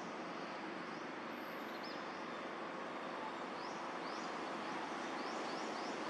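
Small birds giving short, high chirps that sweep upward, a few scattered and several close together in the second half, over a steady outdoor background hiss.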